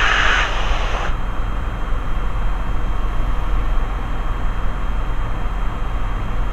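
Steady drone of a Robin DR400/180's four-cylinder Lycoming engine and propeller heard inside the cockpit in level flight, its mixture slightly leaned. A band of hiss cuts off about a second in.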